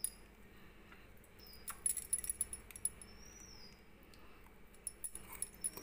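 Stainless steel bowls clinking and scraping as spice paste is scraped from a small bowl into a larger mixing bowl: a run of light metallic clinks and taps in the middle and a few more near the end.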